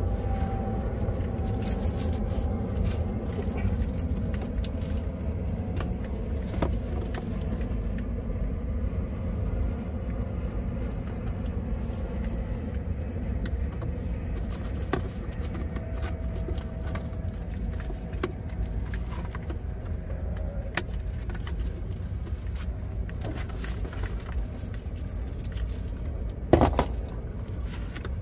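A steady low rumble under small clicks and rattles as a boxed toy RC car is handled and turned over. Near the end there is a louder, sharper rustle or scrape as the cardboard shipping box and its packaging are worked open.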